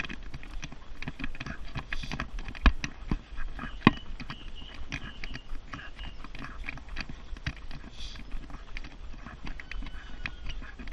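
Thule jogging stroller rolling fast over a tarmac path, its frame rattling with irregular sharp knocks and clicks over a steady low rumble of wheels and wind, along with running footsteps.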